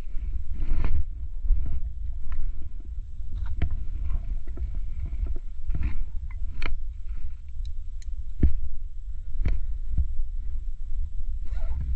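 Wind buffeting a GoPro's microphone as a steady low rumble, with scattered irregular knocks and scuffs of climbing over rock.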